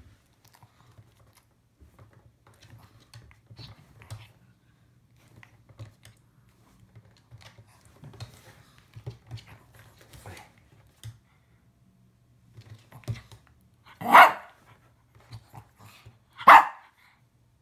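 Shih Tzu giving two short, loud barks about two and a half seconds apart near the end, while playing with a person's hand. Before them there are only soft scattered clicks and scuffles over a low steady hum.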